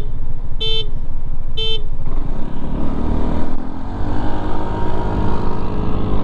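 Three short horn toots about a second apart, a start signal, followed by a Yamaha Aerox 155 scooter accelerating hard at full throttle. Its single-cylinder engine climbs steadily in pitch over a rush of wind noise.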